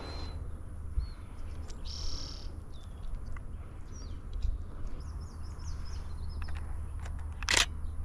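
Wild birds chirping: scattered short, high whistles and chirps, with one buzzy note about two seconds in, over a steady low rumble. A single sharp click near the end is the loudest sound.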